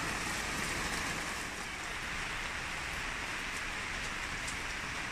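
Rain falling hard: a steady, even hiss with a few faint drop ticks.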